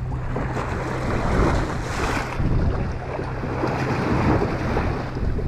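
Wind buffeting the microphone and water washing against the hull of a party fishing boat drifting at sea, over a steady low hum.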